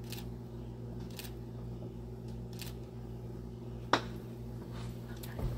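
A few faint, sharp clicks and one loud click about four seconds in, over a steady low hum.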